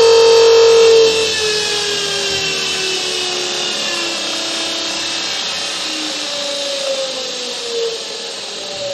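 Watersnake T18 12-volt electric trolling motor spinning its propeller in the air under a PWM speed controller: a high motor whine that drops in level about a second in, then slides slowly down in pitch as the speed is turned down, with a few short falling whines near the end.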